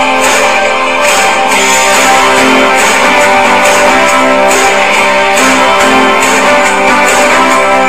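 Background music: a guitar-led track with strummed guitar.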